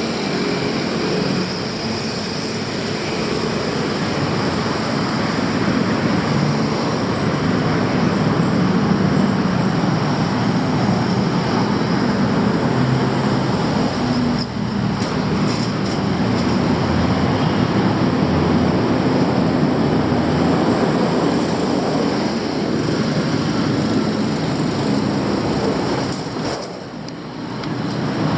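Steady, loud roar of city street traffic and passing vehicles, dipping briefly near the end.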